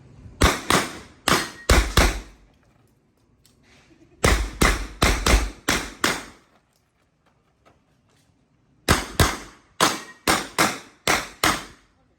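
Handgun shots fired in three fast strings with short pauses between, each string a rapid run of sharp cracks, as a shooter engages a series of targets in a practical-shooting stage.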